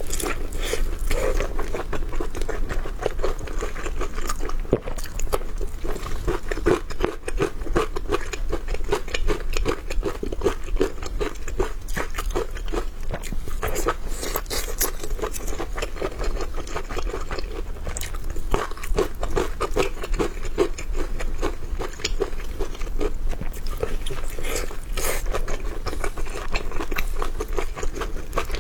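A person chewing and crunching food close to the microphone, with a steady run of small crisp bites and wet chewing.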